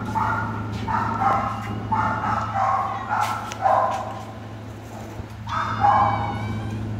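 Dogs yipping and barking again and again, each call stepping from a higher pitch down to a lower one, with a longer wavering whine about six seconds in, over a steady low hum.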